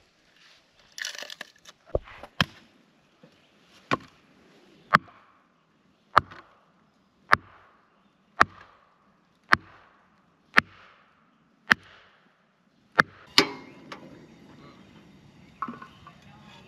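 Chopping on wood: about a dozen sharp strikes, roughly one a second, with a louder double strike near the end.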